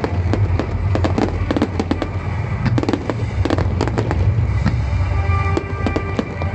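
Aerial fireworks finale barrage: a dense, unbroken run of sharp cracks and pops from bursting shells over a constant low rumble.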